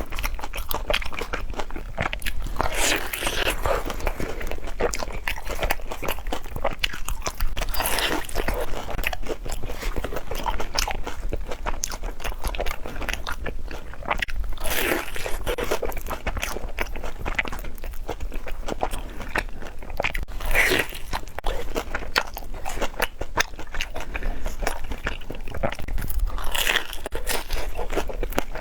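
Close-up crunching and chewing of deep-fried glutinous-rice banana, its crisp coating crackling, with a louder bite about every five to six seconds.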